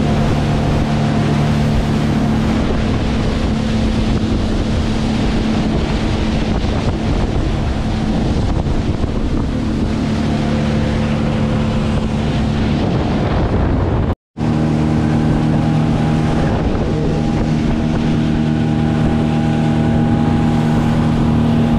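Motorboat engine running steadily at speed, a constant drone under wind buffeting the microphone and rushing water. The sound cuts out for a split second about 14 seconds in, then carries on the same.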